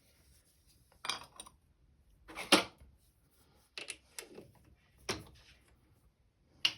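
A string of separate sharp knocks and clatters, roughly one a second, of tools and gearbox parts being handled while the new cam plate bush is fitted.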